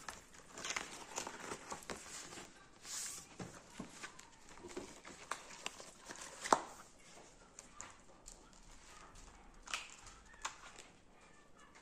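Pages of a spiral-bound paper planner being flipped and handled: irregular paper rustles and light clicks, with one sharper tap a little past the middle.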